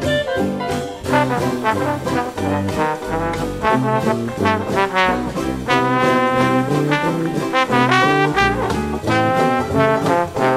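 Instrumental background music in a jazz style, with brass instruments playing the tune and some notes sliding up in pitch.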